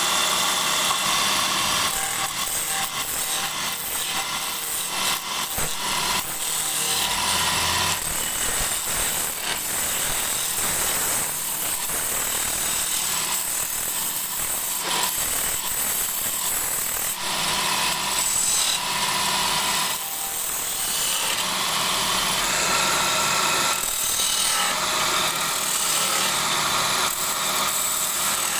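Wood lathe running while the spinning wood is worked, a steady loud hiss of scraping and cutting that shifts in texture as the tool moves along the piece.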